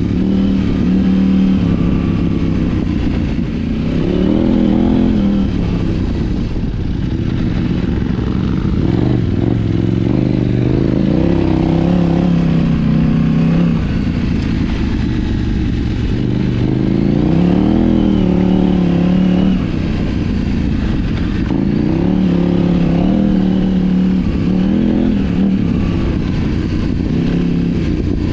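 KTM 790 Adventure R's parallel-twin engine under way, heard from on board, its revs rising and falling every few seconds as the throttle is rolled on and off. It breathes through an Arrow titanium slip-on exhaust with a de-cat mid pipe.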